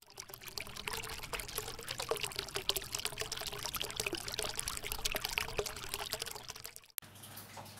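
A pouring-water sound, crackly and steady with a faint held tone, that cuts off suddenly about seven seconds in, leaving low room noise.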